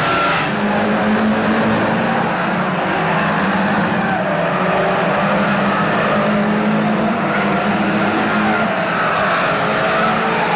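Several stock car engines running together as a pack races round the oval, a steady engine drone with some engine notes rising and falling.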